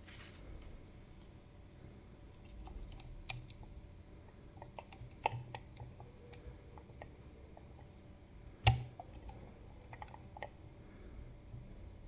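Faint, irregular small clicks and light scraping of a lock pick and tension tool working the pins of a CISA AP3 pin-tumbler cylinder lock, with one sharper click about nine seconds in.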